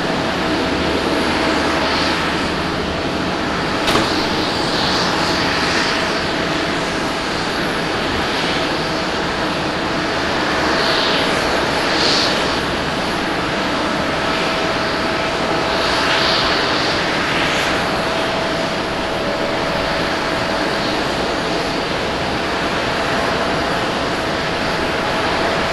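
Airbus A320neo airliner on final approach to landing, its jet engines giving a steady rushing noise with a faint steady whine. A brief click comes about four seconds in.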